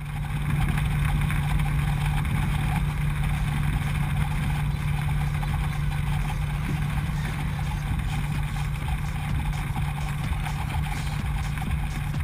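Savage Classic ultralight's engine and propeller running steadily at low power, a constant droning hum.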